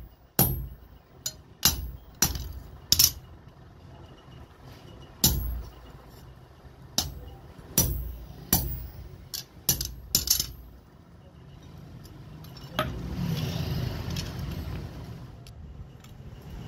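Hammer striking a steel punch held in tongs, driving holes through the tang of a knife blank forged from an old file on an anvil: about a dozen sharp metallic strikes with a ringing tail, unevenly spaced, stopping a few seconds before the end.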